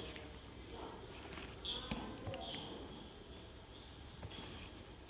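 Quiet room tone with a faint steady high-pitched whine and a few soft clicks, plus a couple of faint short chirps a little under two seconds in and again about half a second later.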